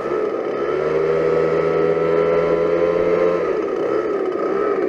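Gas leaf blower running steadily at high throttle, used to fluff freshly spread pine straw. Its pitch drops a little about three and a half seconds in.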